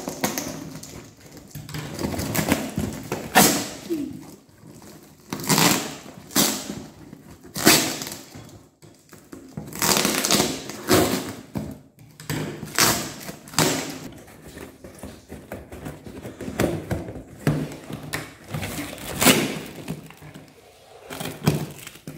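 Packing tape and plastic wrap being cut with scissors and torn off a cardboard box: a run of irregular ripping, crinkling and scraping noises.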